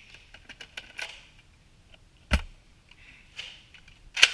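Handling noise close to the microphone: scattered light clicks and rustling, a sharp knock with a low thump about two seconds in, and a louder sharp knock near the end.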